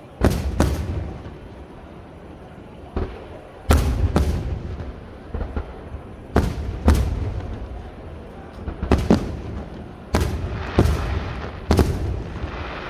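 Aerial fireworks display: about a dozen loud bangs of bursting shells, mostly in pairs about half a second apart, each trailing off in echo.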